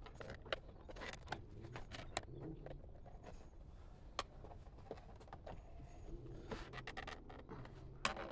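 Scattered light clicks and scraping of plastic as a Tesla Model 3 wing-mirror cover is worked loose by hand and prised off its clips.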